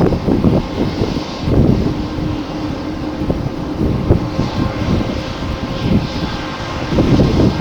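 Airliner jet engines running, heard through strong wind buffeting the microphone in uneven gusts.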